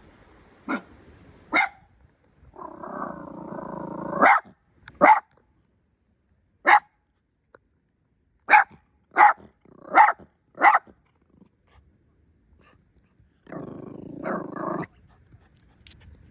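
A dog barking in about nine single sharp barks with pauses between, broken by two longer growls, one about three seconds in and one near the end.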